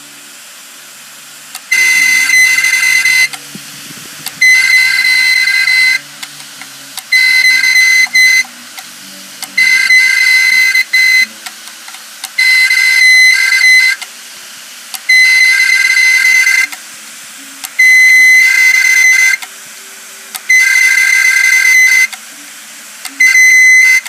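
Failed Seagate Barracuda 1.5 TB 7200 rpm hard drive, running with its cover off, screeching in loud high-pitched bursts about a second and a half long. The bursts repeat about every two and a half seconds, with a quieter hum between them.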